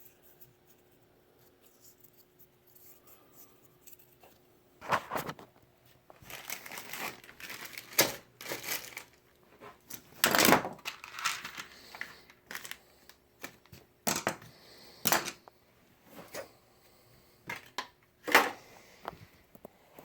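Hands handling objects: irregular knocks, clicks and rustling, starting about five seconds in, with several louder clunks.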